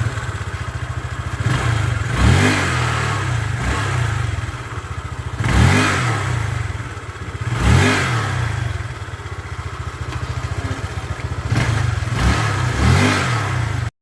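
Honda Click 150 scooter's single-cylinder engine idling with several short throttle blips, each revving up and dropping back to idle. The engine is running normally after a repair for hard starting.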